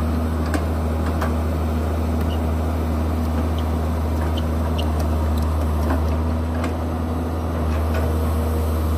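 Caterpillar tracked excavator's diesel engine running steadily under load as the bucket digs and lifts soil, with a few faint clicks and knocks.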